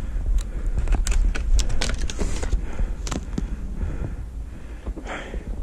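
Footsteps crunching and scuffing through snow in an irregular run of short knocks, over a steady low wind rumble on the microphone.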